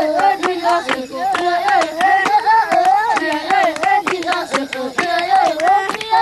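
Baka children singing a wavering, repeating melody in two interlocking voice lines, over quick, steady hand-clapping of about three to four claps a second.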